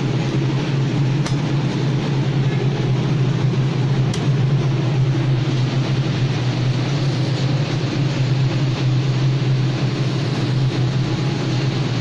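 Steady low rumble with hiss, a mechanical background noise that holds even throughout, with two faint clicks in the first few seconds.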